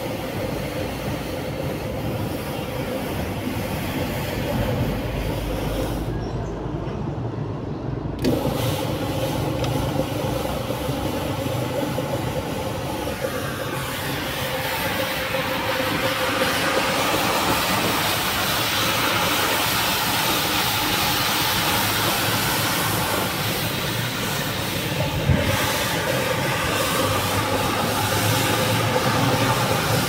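Metro single-disc rotary floor scrubber running with a soft bristle brush on wet, foamy carpet: a steady motor hum under the hiss of the brush scrubbing the pile. The hiss drops out for about two seconds some six seconds in.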